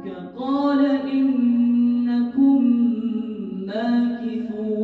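A man reciting the Quran aloud in a slow melodic chant (tajweed), holding long notes with ornamented turns and taking breaths between phrases.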